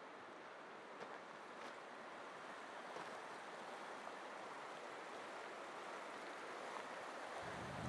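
Shallow mountain river rushing over a rocky, riffled bed: a steady, even rush of water. Near the end a low rumble of wind buffeting the microphone comes in.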